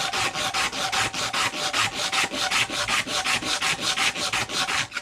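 Rapid back-and-forth hand scrubbing of an abrasive on a metal Jeep door hinge, about five or six scraping strokes a second, taking the paint off so the hinge will fit and slide.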